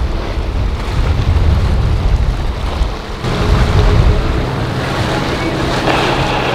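Boats running through choppy inlet waves: hull splashing and spray under heavy wind buffeting on the microphone. About three seconds in, the steady hum of a center-console boat's Suzuki outboard engine comes in under the splashing.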